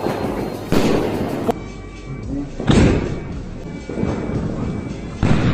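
Aerial firework shell going off: three sharp booms about two seconds apart, each trailing off in a rumble, from a 2.5-inch single sky shot shell.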